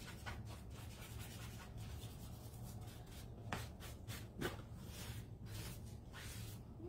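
A damp wipe scrubbing chalk paste off a silkscreen transfer on a tabletop, in quick, faint, repeated rubbing strokes over a low steady hum.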